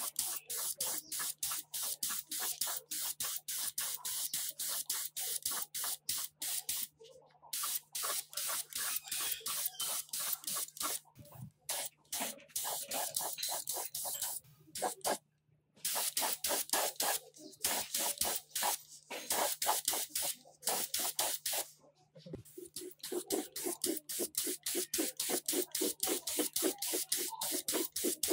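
Gravity-feed paint spray gun spraying grey paint onto cast metal grinder parts: a hiss broken into rapid pulses, about three a second, with a few short pauses.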